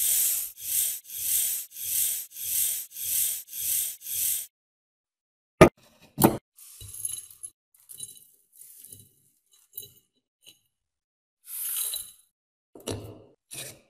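A stiff brush sweeping loose rust chips across a tabletop in about eight quick strokes, roughly two a second. Then a sharp click, the loudest sound, as a plastic jar's lid is worked, followed by scattered light clinks and rattles as rust chips drop into the jar.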